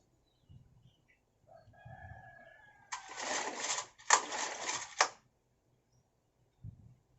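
Rooster crowing: one long, loud crow lasting about two seconds, with a short break partway through.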